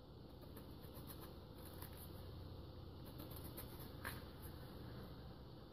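Faint scratching and light ticks of a small kitchen knife scoring pomegranate rind between the membranes, over a low steady hum.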